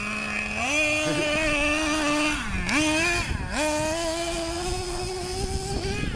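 Small two-stroke nitro engine of a Traxxas radio-controlled monster truck running with a buzzing whine. It climbs in pitch about half a second in, drops briefly as the throttle eases near the middle, then rises again and holds.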